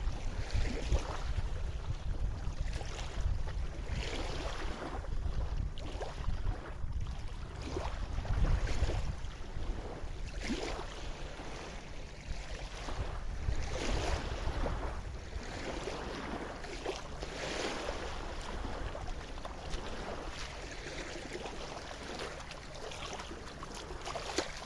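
Wind gusting over the microphone, with a steady low rumble and irregular washes of small waves lapping at the river's edge.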